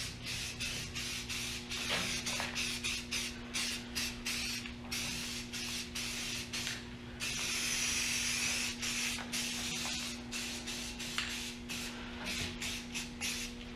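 Aerosol spray can spraying in many short hissing bursts, with one longer burst of about a second and a half just past the middle, over a steady low hum.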